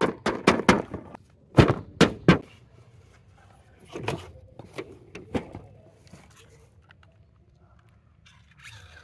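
Cardboard toy box being handled and opened: a quick run of sharp knocks and thuds in the first two and a half seconds, then a few fainter ones about four to five and a half seconds in.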